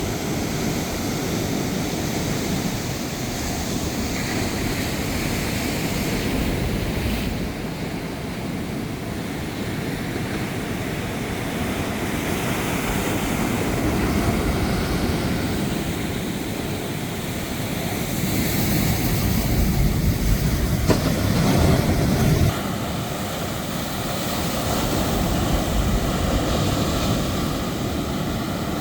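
Steady rushing noise of strong wind and rough surf, with abrupt shifts in its sound about seven seconds in and again a little after twenty-two seconds.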